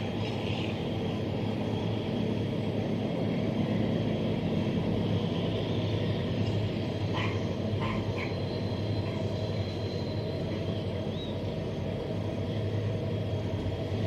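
Diesel freight locomotive passing with its wagons, its engine a steady low drone under the noise of the rolling train, with a few short clicks a little past halfway.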